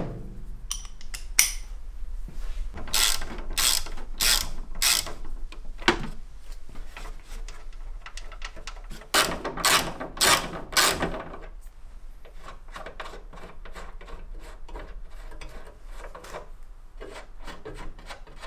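Hand ratchet wrench clicking through repeated strokes as bolts are undone during disassembly of the car's front end. Two runs of loud clicks come early and in the middle, followed by a long stretch of faint, quick clicks.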